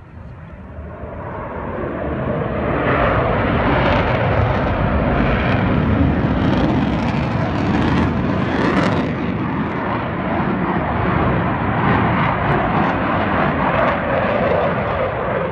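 Jet engine roar from the Frecce Tricolori's Aermacchi MB-339 jets flying low past: it swells over the first two seconds, then stays loud and steady.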